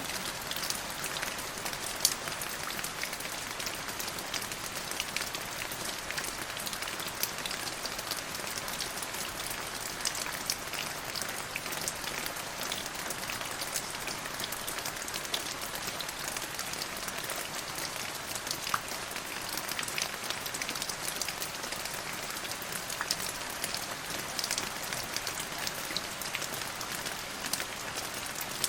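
Steady rain falling, an even hiss with many sharp drop ticks scattered through it.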